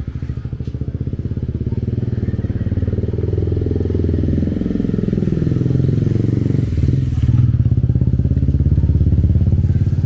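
A motor vehicle engine running close by, its low pulsing getting louder over the first several seconds, with a sweeping change in tone about seven seconds in as it passes.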